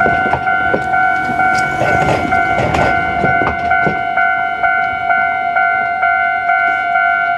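Japanese level-crossing warning bell ringing in a steady repeating beat, about two and a half strikes a second. Over it, the last cars of a Kintetsu 9000- and 2610-series express train clack over the rail joints, and the wheel clacks stop about four seconds in.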